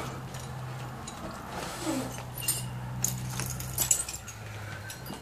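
Footsteps on a floor littered with rubble and broken debris: scattered crunches and light clinks, with a few sharper ones in the second half.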